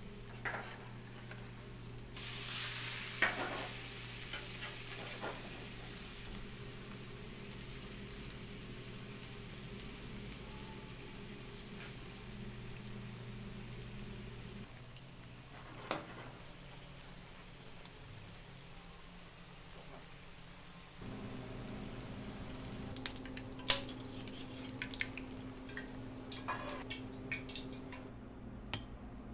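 Shredded potato frying in a small pan, sizzling with a steady hiss that is strongest in the first half, over a low steady hum. A few sharp knocks and clicks come through, several of them near the end.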